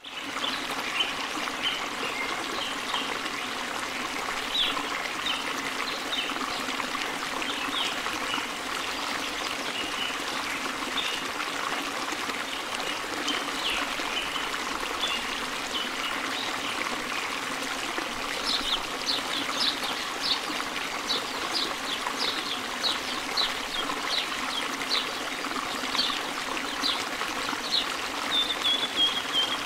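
Steady trickling of running water, with short high chirps scattered over it. From about two-thirds of the way in, the chirps come more regularly, about two a second, ending in a short falling trill.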